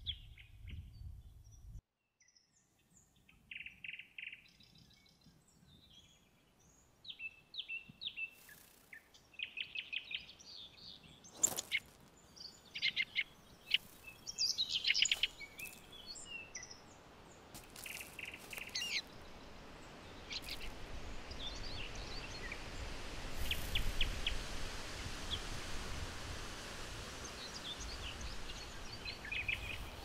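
Birds chirping and calling in short bursts and quick trills, over a steady background hiss that builds up in the last third.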